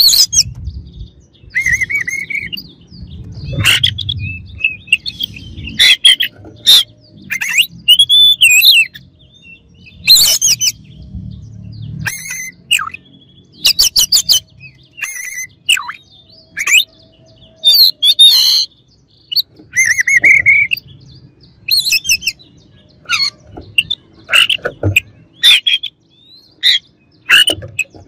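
Oriental magpie-robin singing loudly close by: a string of short phrases with gaps between, mixing whistled glides, harsh chatters and sharp rapid clicks, typical of a kacer running through its repertoire of learned imitations.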